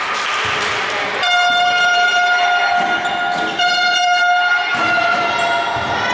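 Spectators' handheld horns blown in long, steady-pitched blasts: after about a second of crowd noise, one blast is held for about two and a half seconds, then after a short break another long blast follows.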